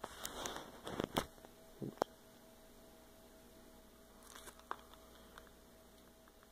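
Handling noises from a firework cake's cardboard box: a cluster of sharp knocks and crinkling packaging in the first two seconds, a few more clicks about four and a half seconds in, over a faint steady hum.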